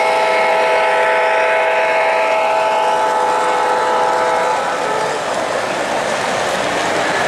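O-gauge model diesel locomotive's onboard sound system blowing a long, steady horn chord as the engine passes, cutting off about four and a half seconds in. The freight cars then roll by on the three-rail track with an even rolling rumble.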